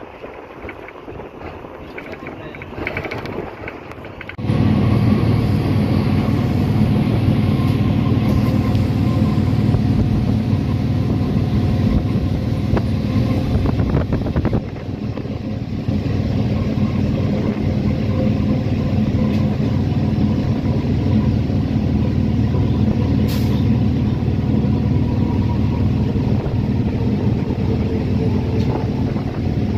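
Train running at speed, heard from inside a coach: a loud, steady rumble with a low hum that cuts in abruptly about four seconds in, after a quieter stretch of wind noise.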